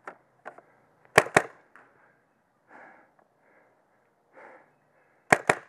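Paintball marker firing: a quick pair of shots about a second in, then another quick pair near the end.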